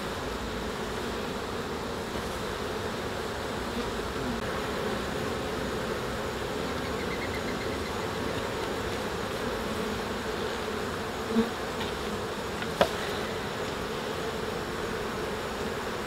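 Steady hum of a honey bee colony crowding the frames of an opened hive, with a sharp click near the end.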